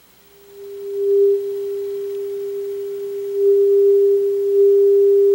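A steady single test tone from the 1948 General Electric tube radio's speaker: the signal generator's modulation tone being received as the oscillator trimmer capacitor is adjusted during alignment. The tone fades in over the first second and gets louder again a little after halfway, as the set comes onto the signal.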